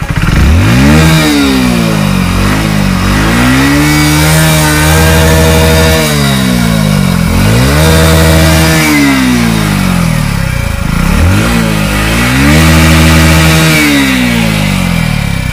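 Hero Splendor Plus Xtec motorcycle's 97cc single-cylinder four-stroke engine being revved through its exhaust: four throttle blips, dropping back toward idle between them. The first is brief; the other three are held high for a second or two before falling away.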